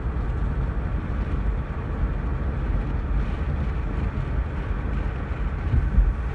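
Steady low road and engine rumble inside a moving car's cabin, with a short low thump near the end.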